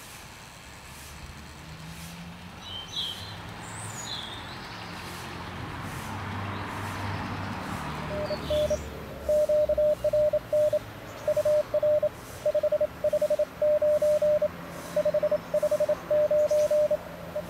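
Morse code (CW) from an Elecraft KX3 transceiver: one steady mid-pitched tone keyed on and off in dots and dashes, starting about eight seconds in, over receiver hiss. Birds chirp briefly a few times.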